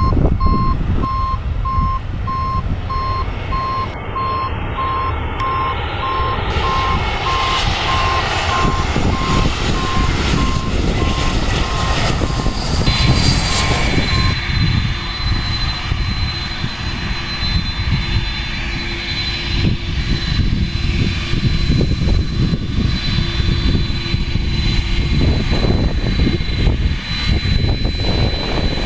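Jet airliner engines running as a plane passes, a swelling rush and whine, under heavy wind rumble on the microphone. A pulsed beeping runs through the first half.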